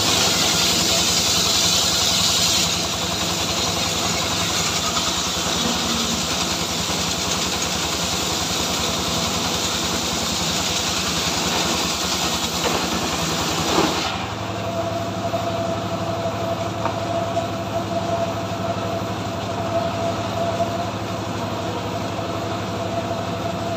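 Engine of a homemade cart-mounted log saw running steadily while the saw cuts through a log with a rasping hiss. About 14 seconds in the cutting hiss drops away and the blade runs free with a steady whine over the engine.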